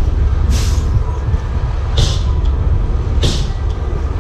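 Truck engine idling with a steady low rumble. Short hisses cut in over it about every second and a half.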